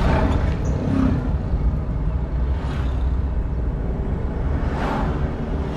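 Steady low rumble of a car driving on asphalt, heard from inside the cabin, with the whoosh of a large truck passing close alongside at the start and further swishes of passing vehicles, the clearest about five seconds in.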